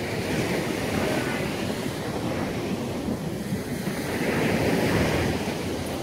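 Surf washing on the beach, swelling louder past the middle, with wind rumbling on the microphone.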